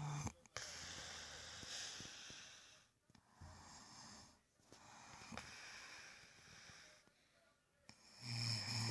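A sleeping person snoring: several long, breathy breaths with short pauses between them, then a louder, low-pitched snore near the end.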